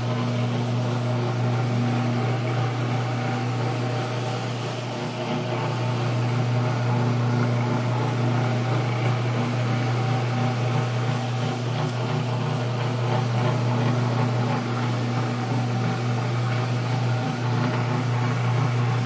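Rotary floor machine scrubbing carpet, its electric motor running with a steady low hum.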